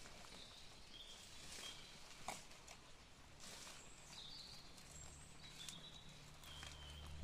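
Faint outdoor ambience: short high chirps repeating every second or so, with scattered soft clicks and rustles like steps on leaf litter. A low steady rumble comes in about five seconds in.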